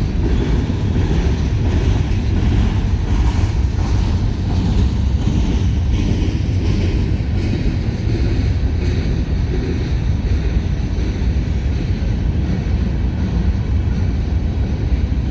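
Covered hopper cars of a long freight train rolling past at close range: a steady, loud rumble of steel wheels on the rails.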